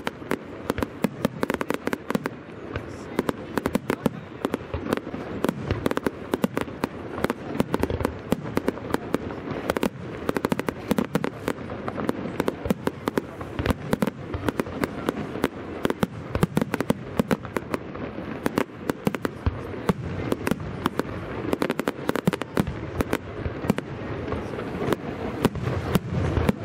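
Fireworks display firing a continuous barrage: rapid sharp bangs and crackles, many a second, without pause, over a steady low din.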